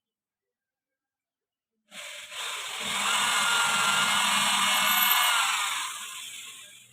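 A power tool motor starts about two seconds in, builds to a steady running sound for a few seconds, then fades out near the end.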